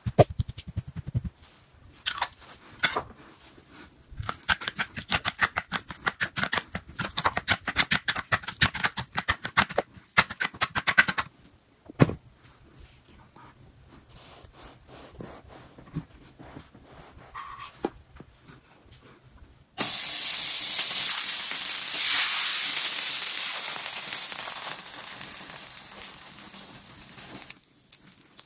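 For several seconds there are fast, quick clicking strokes of kitchen handwork. About two-thirds of the way through, buttered burger bun halves go into a hot frying pan and sizzle. The sizzle starts suddenly, loud at first, and fades away near the end.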